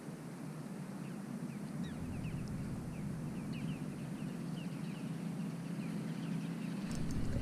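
Birds calling in a run of short, quick falling chirps over a steady low rumble.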